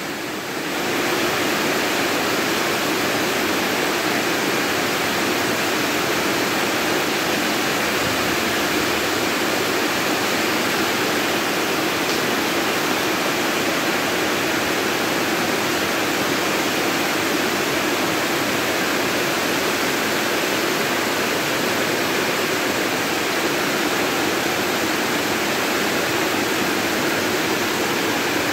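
Heavy rain falling steadily on a corrugated metal roof, an even unbroken hiss.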